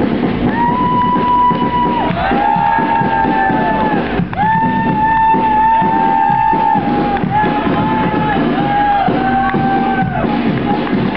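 University marching band playing a tune in long held brass notes that step from pitch to pitch, over a full low end.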